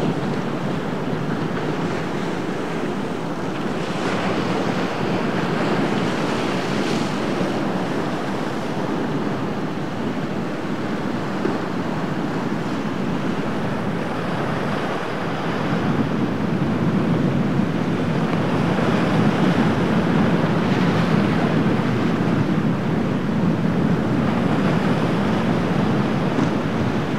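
Breaking surf and wind buffeting the microphone, a steady rushing noise that gets louder about halfway through.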